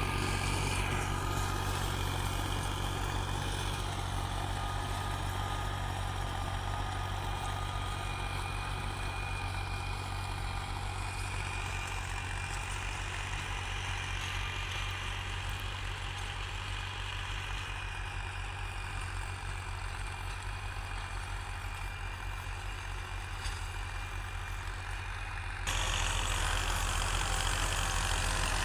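Diesel farm tractor engine running steadily while tilling, a low drone with a thin steady whine above it. The sound jumps abruptly louder near the end.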